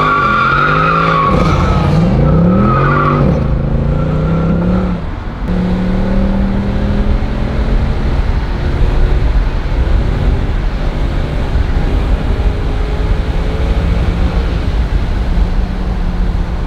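Mercedes-Benz C63 AMG's V8 at full throttle, heard from inside the cabin. Its pitch climbs and drops back at each upshift, about every second and a half, for the first five seconds. It then eases off briefly and settles into a steady drone.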